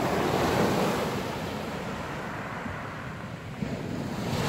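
Sea surf breaking on the shore, with wind on the microphone. A surge of wave noise at the start fades over a few seconds, and another builds near the end.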